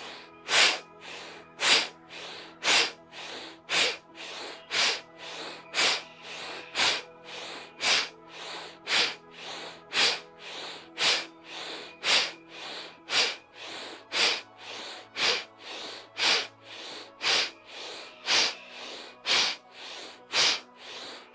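A man doing Bhastrika pranayama (bellows breath): about one forceful, sharp exhale a second, each followed by a softer inhale, in an even rhythm over quiet background music.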